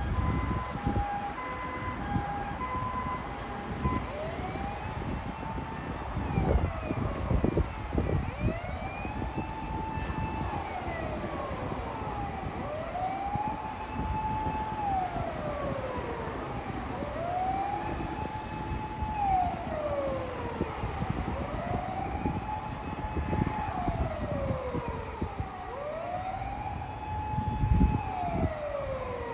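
Japanese emergency-vehicle electronic sirens: for the first few seconds a two-tone siren alternating between two notes, then a wail that rises, holds a high note and falls, repeating roughly every four seconds, over passing traffic.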